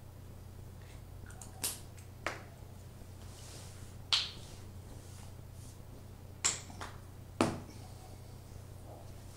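Five short, sharp clicks and taps, spread irregularly over several seconds, over a steady low hum.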